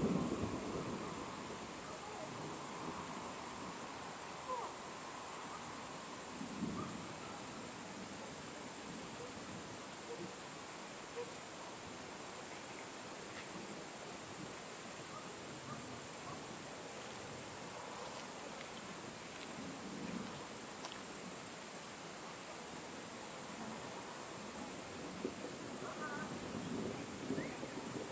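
Crickets chirring: a steady, high-pitched, unbroken drone. The low tail of a thunder rumble fades out in the first second.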